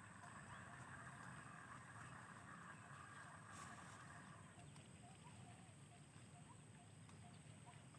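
Near silence: faint outdoor background, with a faint steady high-pitched hiss that fades out about four and a half seconds in.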